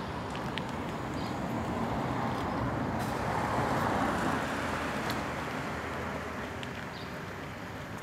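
A car passing along the street, its road noise swelling to a peak about four seconds in and then fading.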